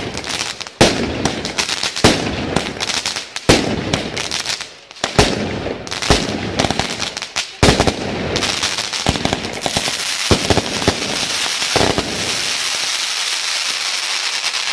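Fireworks going off: a run of sharp bangs from bursting shells, then from about eight seconds in a continuous crackling hiss dotted with small pops.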